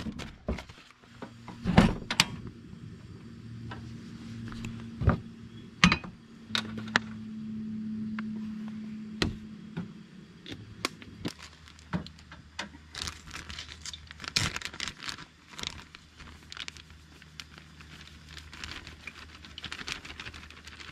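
Camp cookware and utensils being handled during meal preparation: scattered clinks, knocks and rattles at irregular intervals, over a low background hum.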